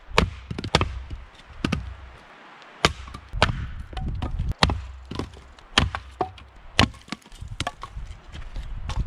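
Hatchet chopping and splitting firewood: sharp wooden strikes, roughly one a second at an uneven pace.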